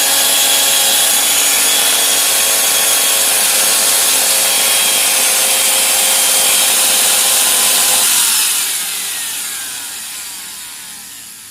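Magtech MT90 angle grinder running unloaded at full speed with a rough, growling, heavy note. It is switched off about eight seconds in and winds down with a falling whine. The growl comes from an armature worn uneven after worn carbon brushes were left too long.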